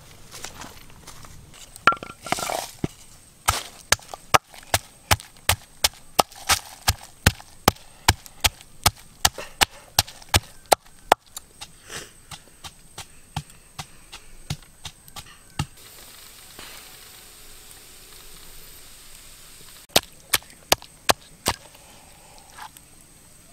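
A blade chopping against wood in quick, even strokes, about two or three a second. The strokes stop for a few seconds, then four more come near the end.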